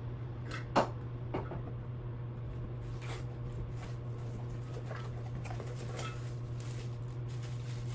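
A cardboard box being opened and its packaging handled: a few soft knocks and clicks, the clearest about a second in, over a steady low hum.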